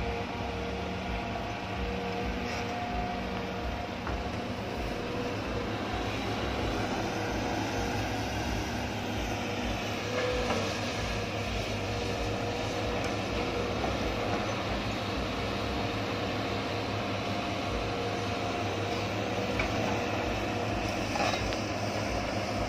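Hitachi hydraulic excavator's diesel engine running steadily as the machine digs soil and swings to load a dump truck.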